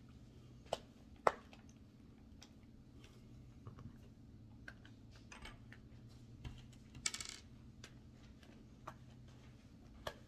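Scattered light clicks and knocks of a Traxxas Slash RC truck's wheel being handled and fitted back onto its hub. The sharpest two come about a second in, with a short scraping rattle near seven seconds.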